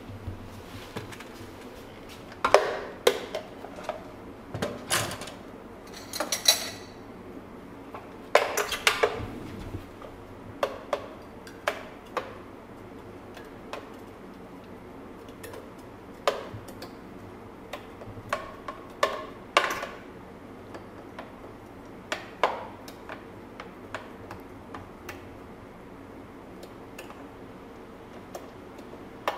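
Irregular knocks, taps and clinks of a plastic blender jar and glassware being handled as a thick blended frappe is poured out of the jar, with one brief ringing clink. A low steady hum runs behind.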